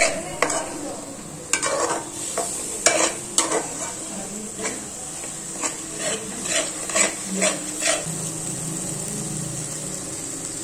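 A spatula scraping and stirring thick onion masala in an aluminium pot, in short irregular strokes over a steady sizzle of frying. The stirring stops near the end while the sizzle carries on.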